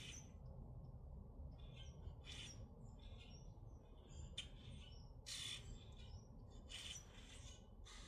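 Common grackles giving short, harsh, raspy calls, about a dozen at irregular spacing, over a steady low rumble.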